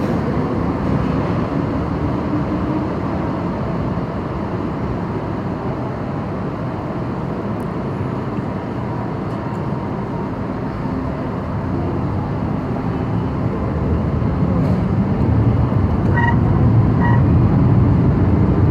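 MTR Kwun Tong line train running through a tunnel, heard from inside the train: a steady rumble of wheels on rail that grows louder near the end. Two brief tones sound near the end.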